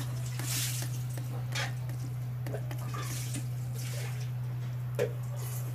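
Soft, wet squishing and light clicks of cooked rice being mixed by hand on a steel plate, over a steady low electrical-sounding hum.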